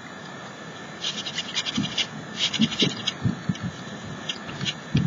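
Soft pastel being rubbed and smeared through a plastic stencil onto a rough plaster canvas: a run of quick, scratchy rubbing strokes about a second in, thinning out later, with a few soft knocks of the hands on the stencil.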